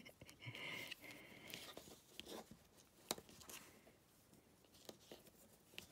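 Near silence with faint rustling and a few soft ticks from hands handling baker's twine and card stock while tying a bow; the sharpest tick comes about three seconds in.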